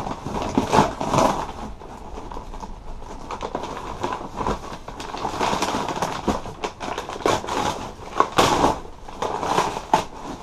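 Brown kraft packing paper rustling and crumpling as hands pull it aside in a cardboard box, an irregular crackle with a few louder snaps.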